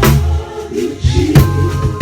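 Gospel band music: electric bass playing prominent low notes under keyboard chords, with drum kit hits at the start and about a second and a half in.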